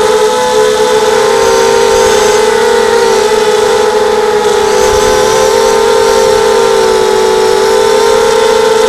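Mini quadcopter's four Tiger MN1806 2300 kV brushless motors spinning Gemfan 5030 two-blade props, heard from on board: a loud, steady high whine that wavers slightly in pitch as the throttle changes.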